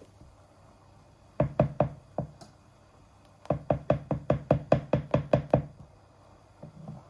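Wooden spoon knocking against the side of an aluminium pot while stirring melting butter: a quick run of four knocks, then a faster, longer run of about fourteen.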